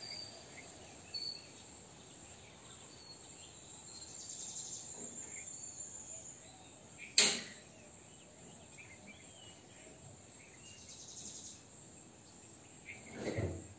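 Insects chirring steadily in the background, in a high band with pulsing bursts every few seconds. A single sharp click about seven seconds in, and a low thud near the end.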